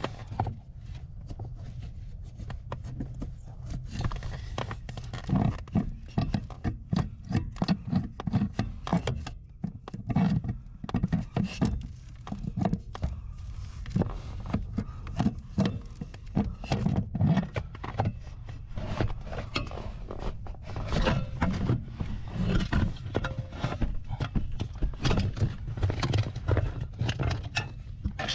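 Irregular clunks, knocks and clicks of hand tools working on metal over a steady low hum.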